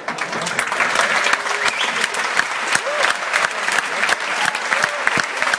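Large audience applauding: dense, steady clapping, with a brief call or two from the crowd.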